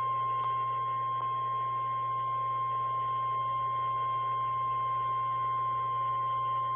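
Emergency alert attention tone: a single steady pure tone just above 1 kHz, the 1050 Hz warning alarm tone of NOAA Weather Radio, which announces that an alert message follows.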